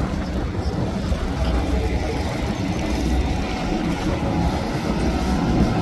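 Express cruiser running fast: a steady low drone of its engines mixed with the rush of water from its hull.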